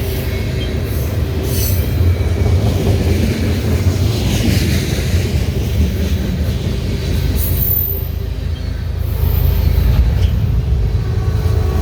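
Canadian Pacific train's cars rolling past at track speed: a steady rumble of steel wheels on rail, with clickety-clack and a couple of brief high-pitched wheel squeals in the second half.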